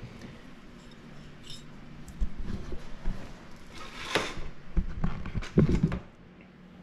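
Workbench handling noise: several knocks and clunks of metal parts and tools, with a short rustle about four seconds in, then quieter near the end.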